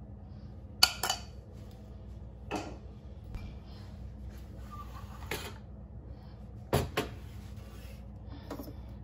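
Short knocks and clinks of espresso gear being handled: a metal spoon, the aluminium portafilter and its dosing funnel tapped and set down on a stainless-steel counter. The loudest come as a pair about a second in and another pair near seven seconds in, with lighter taps between.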